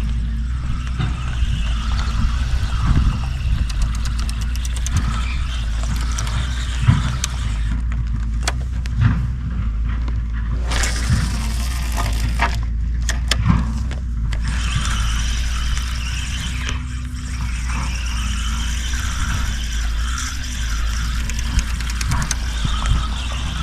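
Spinning fishing reel being cranked, its gears whirring and clicking as line is wound in, with the whir repeating with each turn of the handle in the second half. A steady low rumble runs underneath.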